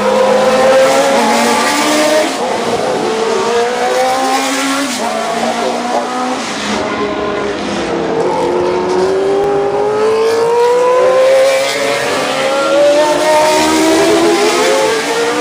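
Several vintage Formula 1 cars accelerating hard through a corner one after another, their high-revving engines overlapping. Each engine's pitch climbs steadily, drops back, then climbs again.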